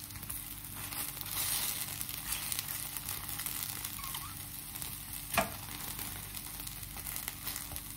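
Pancake batter frying in oil in a skillet: a steady sizzle with fine crackling, and one sharp click about five and a half seconds in.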